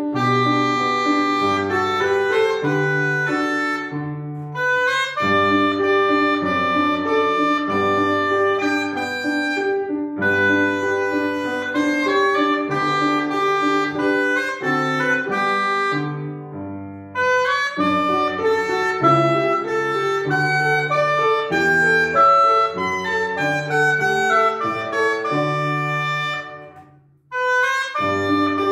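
Oboe playing a melody over upright piano accompaniment, in phrases with short breaks between them, with a near-silent pause about 27 seconds in before the music picks up again.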